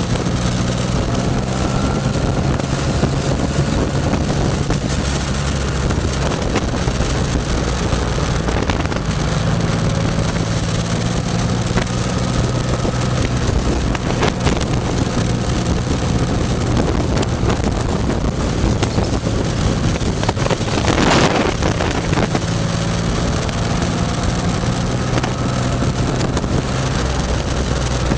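Motorcycle engine running at a steady road speed, with wind rushing over the microphone. A brief loud whoosh of air comes about three quarters of the way through.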